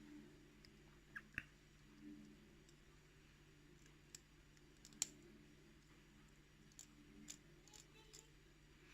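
Near silence broken by a few faint, sharp clicks and taps of small metal lock parts and a pick being handled, the clearest about five seconds in.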